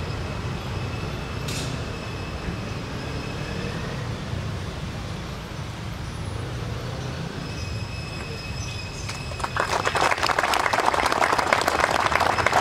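A steady low background rumble, then a crowd breaks into applause about nine and a half seconds in. The applause is dense and loud and runs on to the end.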